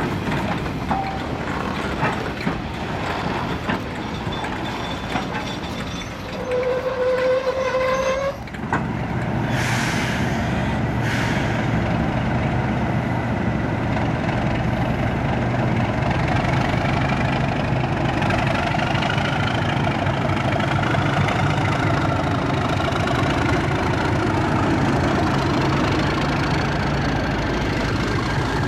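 Train rolling past slowly, wheels clattering over the rail joints, with a brief high squeal about seven seconds in. Then a Class 37 diesel locomotive's English Electric V12 engine running as it approaches, growing slightly louder, with a whine rising in pitch toward the end.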